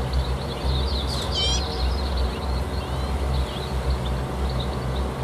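Concrete mixer truck's diesel engine running with a steady low hum, while small birds chirp faintly over it, including a quick run of chirps about a second and a half in.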